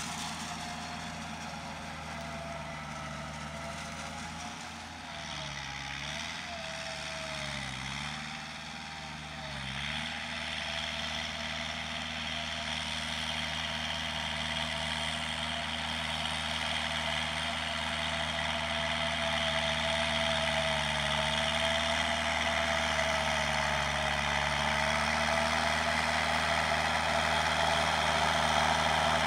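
Kubota tractor's diesel engine running steadily under load as it pulls a rotary tiller/bed-former through the soil. The engine note dips a few times early on, then steadies and grows gradually louder as the tractor comes closer.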